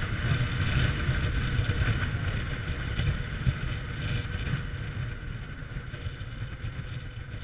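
Zero FX electric motorcycle on the move: wind buffeting on the microphone under a faint, steady high whine, with almost no motor noise. The sound eases off over the last few seconds.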